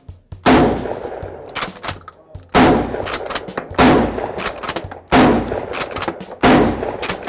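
Mossberg 500/590 pump-action 12-gauge shotgun, converted to take box magazines, fired five times in quick succession, the shots a second or two apart.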